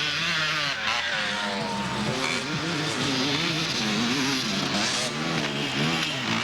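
Several off-road motorcycle engines revving, their pitch rising and falling as the bikes accelerate and ease off.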